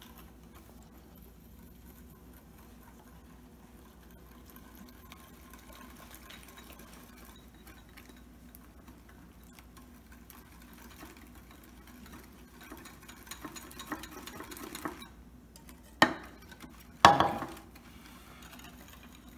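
Wire whisk stirring a dry mix in a ceramic bowl as milk is poured in. It is faint at first, then turns into a quick run of whisk clicks against the bowl, followed by two sharp knocks about a second apart near the end.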